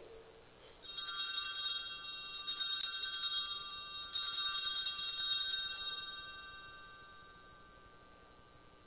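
Altar bells (Sanctus bells) rung three times, a cluster of small bells jangling and ringing out after each shake, then fading away: the signal for the elevation of the chalice at the consecration.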